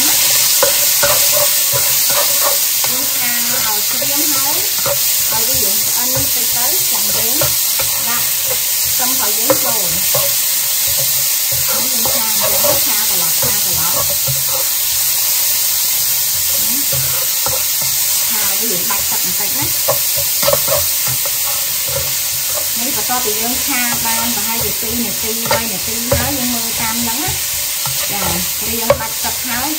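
Sliced pork sizzling in hot oil in a nonstick wok, with a steady hiss, while a spatula stirs it, scraping and tapping against the pan; a few sharper taps stand out.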